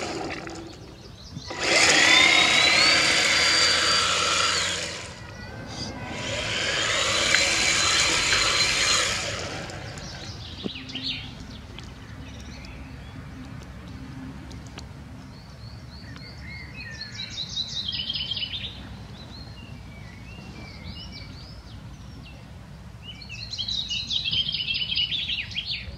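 High-pitched whine of a radio-controlled touring car's motor on two passes of a few seconds each, rising in pitch as the car speeds up and then holding steady. After that, songbirds chirp in two short bouts over quiet outdoor background noise.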